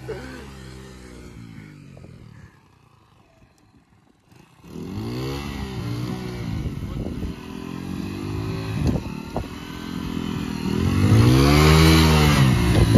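Small commuter motorcycle engine revving up and down again and again as the rear wheel spins and churns through wet mud. The engine drops away briefly near the start, then revs hardest near the end.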